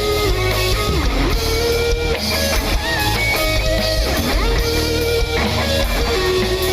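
Live rock band playing an instrumental passage: an electric guitar line with notes that bend and slide down and back up in pitch, over a heavy bass.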